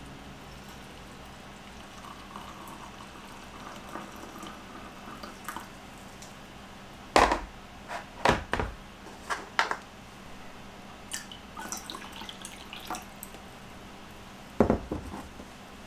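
Hot water poured in a thin stream from a steel gooseneck kettle into a ceramic mug, a faint trickle. About seven seconds in, the kettle is set back down with a few hard clunks, followed by some light clicks and one more sharp knock near the end.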